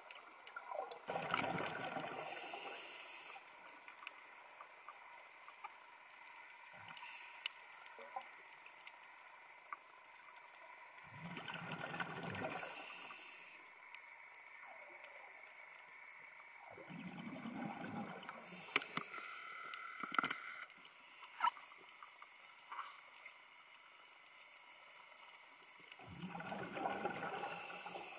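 Scuba diver breathing through a regulator underwater: four bubbling exhalations about eight to nine seconds apart, each lasting about two seconds and ending in a brief hiss, with scattered faint clicks between.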